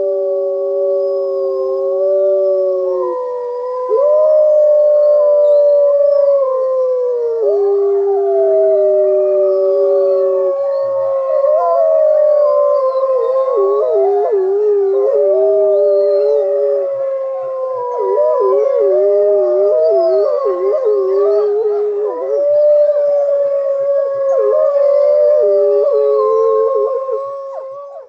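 A chorus of several canines howling together: long, overlapping howls that hold their pitch and slowly glide up and down, with more voices joining about four seconds in. The recording cuts off abruptly near the end.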